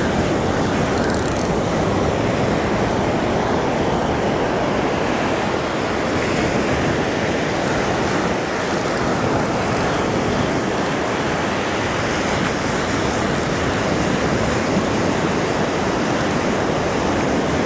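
Ocean surf breaking and washing up over the sand in a steady rush.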